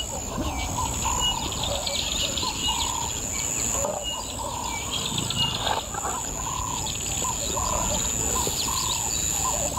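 Bush ambience: several birds calling over and over, short high piping notes and lower warbling calls about once a second, over a steady high-pitched insect drone.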